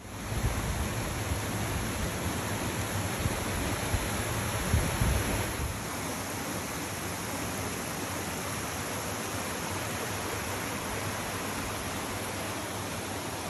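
Steady rushing noise, with a low rumble and a few soft thumps in the first five seconds; from about six seconds in it settles into an even hiss.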